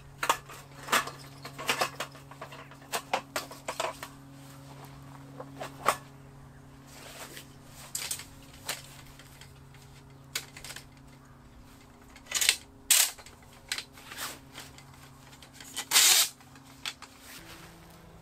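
Irregular knocks, clicks and clatters of camp gear being handled and packed away, with a louder clatter about sixteen seconds in. A faint steady low hum runs underneath.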